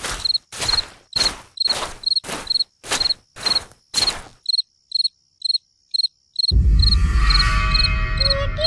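Footsteps, about two and a half a second, over regular cricket chirps; the steps stop after about four seconds, leaving the crickets alone. At about six and a half seconds a loud deep rumble with held tones above it comes in: a ghost sound effect.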